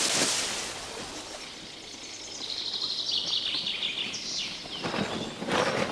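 Outdoor forest ambience: a bird sings a quick trill of repeated high notes for a couple of seconds, followed near the end by rustling.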